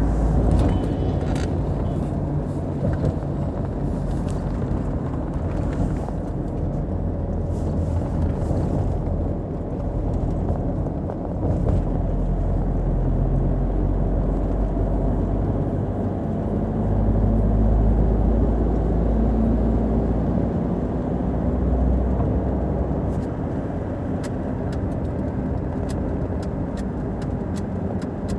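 Car cruising on a highway, heard inside the cabin: a steady low rumble of tyre and engine noise, the engine hum drifting slightly up and down, with occasional faint ticks.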